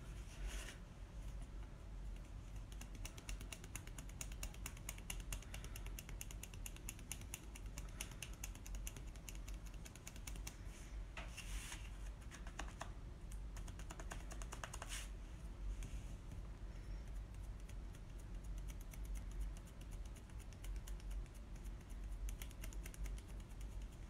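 Cosmetic sponge dabbed quickly and firmly onto a stencil laid on a wooden board: a steady run of soft rapid taps, with a few louder rustling scrapes about halfway through.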